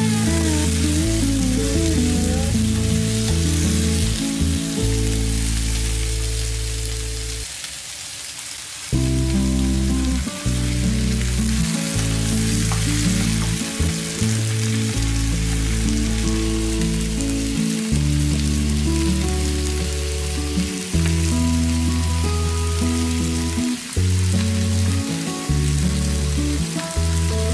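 Chunks of potato, onion and carrot sizzling as they stir-fry in a frying pan. Background music with a steady bass line plays over it and drops out briefly about a quarter of the way in.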